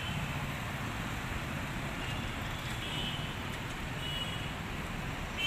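Road traffic noise: cars, motorcycles and scooters running and passing close by, a steady even rush. A few short, faint high tones sound about three and four seconds in.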